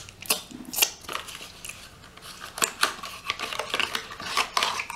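Close-miked eating noises: a run of wet clicks and smacks from chewing chicken, busiest in the second half.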